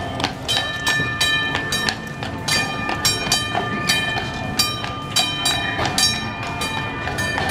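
Horse-drawn streetcar passing. Shod hooves clop about twice a second, and its steel wheels ring on the rails with a steady metallic tone.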